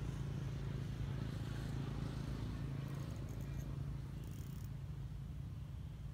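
Steady low hum of a distant motor, with a few faint short high ticks about three and four seconds in.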